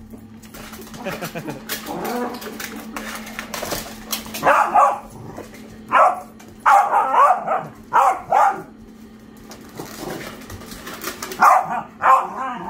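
Puppies barking in short bursts, about five times, as they fight over a plastic frisbee. Quick clicks and scuffles run between the barks.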